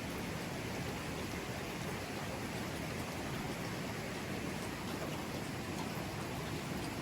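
Mountain river water flowing over rocks, a steady even rush.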